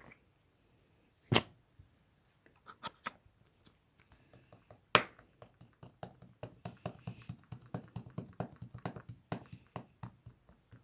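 Slime being squeezed and poked by hand: a sharp tap about a second in and another about five seconds in, then a quick run of small sticky clicks and pops.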